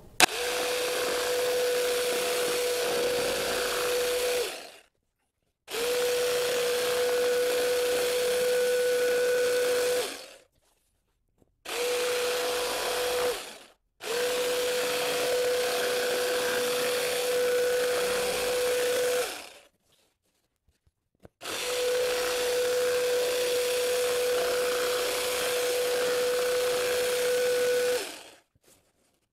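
Electric jigsaw cutting a curve through a sheet of cardboard. It runs with a steady hum in five runs of a few seconds each, and winds down to a stop after each one.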